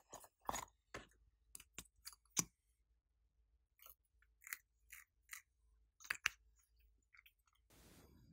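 Hands handling and opening a plastic Hello Kitty case, a quick run of sharp little clicks and crackles, then small bits sprinkled onto slime with a few soft ticks. One louder click comes about six seconds in, and a short rustle near the end.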